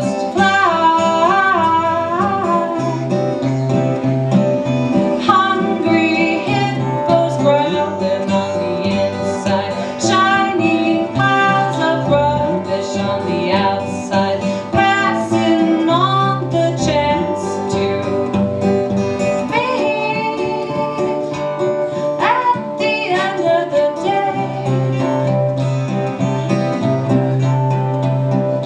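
Live song: a woman singing over two strummed guitars, one of them a black acoustic.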